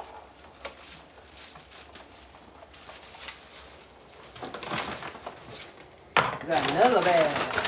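Scattered light knocks and clatter, with a busier stretch of clatter about four and a half seconds in. About six seconds in, a louder voice starts, wavering up and down in pitch.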